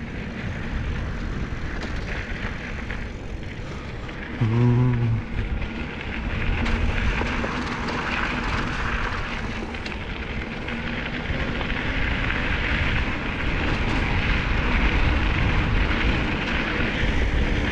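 Steady rushing noise of wind and wheels rolling over a dirt track while moving along it, with a brief hum of a voice about four and a half seconds in.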